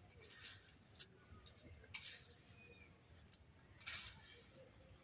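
Faint scraping and brushing as fingers sweep ground biscuit crumbs across a stone grinding slab, with two short sweeps about two and four seconds in and a few light clinks.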